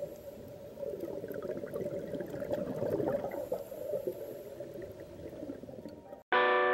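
Water bubbling and gurgling, swelling and fading, that cuts off about six seconds in. A loud held musical chord starts right after.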